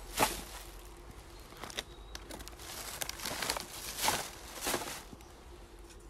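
A plastic carrier bag and crisp-packet wrappers crinkling and rustling in irregular bursts as litter is picked up by hand and bagged, with footsteps on dry leaf litter.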